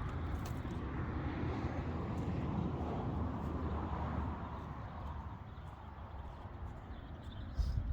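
Wind rushing and buffeting over the microphone with a low rumble; it eases about four seconds in.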